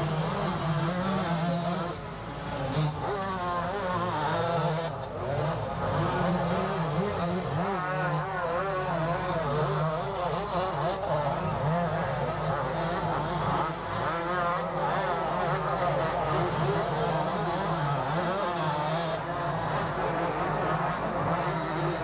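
Several 125 cc two-stroke motocross bikes racing, their engines revving up and down as the riders work the throttle, with the pitch rising and falling.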